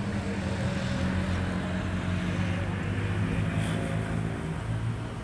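Diesel locomotive hauling a passenger train, its engine running with a steady low drone as the train approaches. There is a brief high sound about three and a half seconds in.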